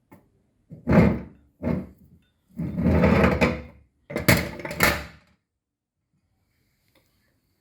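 Meat grinder running in four short bursts of a second or so each, with silence between them and after the last.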